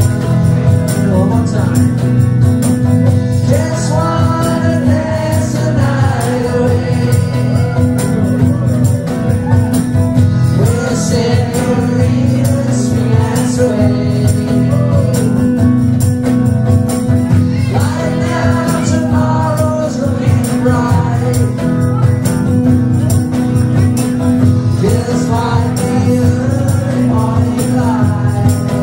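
Live band playing: male and female voices singing over electric guitar, with a tambourine shaken in time.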